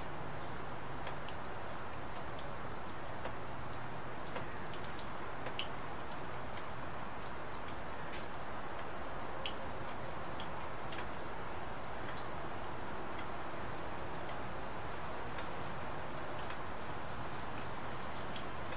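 Steady rain hiss with many irregular, sharp drip ticks of raindrops landing close by.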